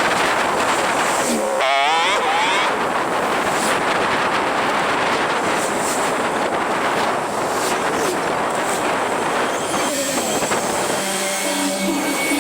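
Steady rush of wind and road noise from riding a bicycle through city traffic. A short warbling tone sounds about two seconds in, and a low steady hum from a nearby vehicle comes in near the end.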